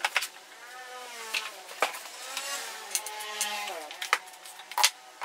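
A motor vehicle passing by: its engine note rises and swells, then drops in pitch about four seconds in. Several sharp clicks and knocks are heard over it.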